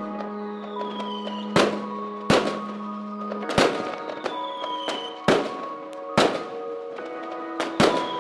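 Fireworks going off, sharp bangs about once a second, some in quick pairs, over soft music with long held notes.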